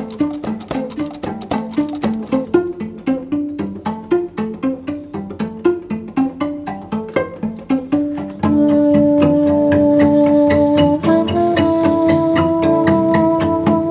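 Background music: string instruments playing a brisk run of short plucked notes, joined about eight and a half seconds in by sustained bowed notes.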